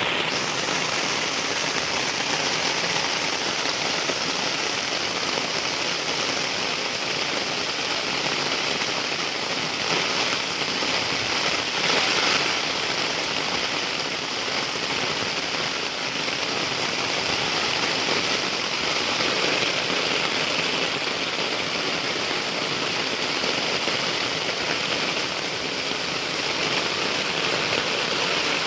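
Heavy rain falling, a dense steady hiss of drops on surfaces, swelling slightly about ten and twelve seconds in.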